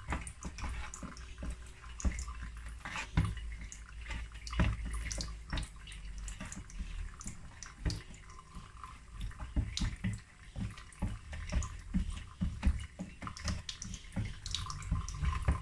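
Irregular soft, wet taps and knocks of pieces of seasoned mackerel being set down and shifted on a metal baking tray by gloved hands, over a low steady hum.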